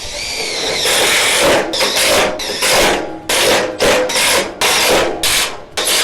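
Power drill driving screws through the metal connection plate into the steel shed frame. It spins up with a rising whine, then runs in a series of short bursts, about two a second, one screw after another.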